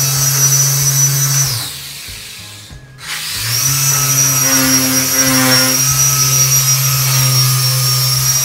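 Electric car polisher wet-polishing the paint. It runs with a steady hum and high whine, winds down about a second and a half in, then starts up again about three seconds in and runs steadily.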